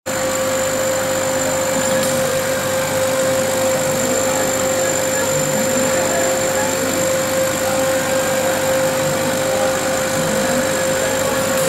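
Laser cutting machine running as it cuts a clear acrylic sheet: a steady whirring noise with a constant hum.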